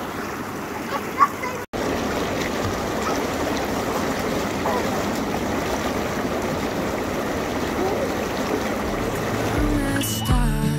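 Inflatable hot tub's air bubble jets churning the water, a steady bubbling rush. A child's voice is heard briefly near the start, and music comes in near the end.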